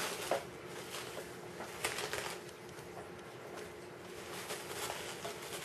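Faint rustling and light crackling of dry shredded aspen wood filler being pressed by hand around silk flowers in a wicker basket, with scattered small clicks.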